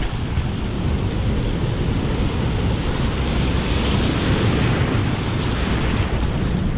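Shallow ocean surf washing in over a rocky shoreline, swelling about halfway through as a breaking wave's whitewash rushes in, with wind buffeting the microphone.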